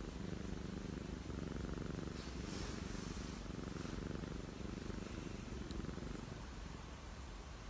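Domestic cat purring steadily while being stroked on the head and cheek.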